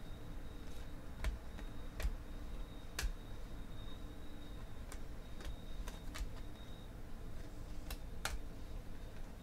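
Stiff Panini Prizm football trading cards being flipped through by hand, each card clicking sharply as it is snapped against the stack. There are about ten clicks at irregular intervals, over a faint steady hum.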